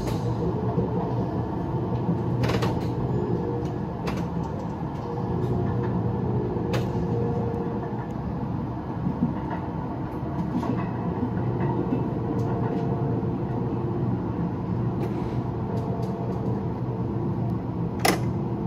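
Simulated electric-train running sound from a train driving simulator: a steady low rumble and hum while the train runs at about 40–45 km/h, with a few sharp clicks, the loudest near the end.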